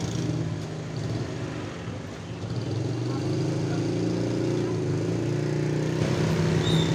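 A motor engine running steadily, with a small change in its pitch and level about two to three seconds in, under background voices.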